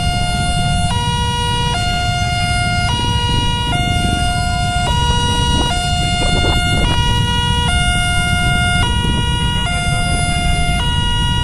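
Electronic level-crossing warning alarm sounding a repeating two-tone call, a lower tone about a second long alternating with a shorter higher one, signalling that a train is approaching. A steady low rumble of idling motorcycles and cars waiting at the crossing lies underneath.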